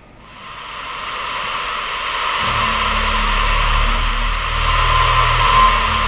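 Soundtrack static: a steady hiss fades in, joined about two and a half seconds in by a low, steady electronic hum.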